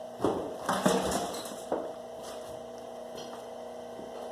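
A few sharp metallic clacks and clatters in the first two seconds as copper cable and the wire stripper are handled, then only a faint steady hum.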